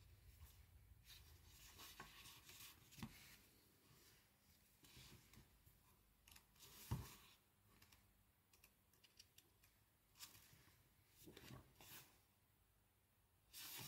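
Faint, intermittent rustling of paper being handled, with small clicks and one sharper knock about seven seconds in.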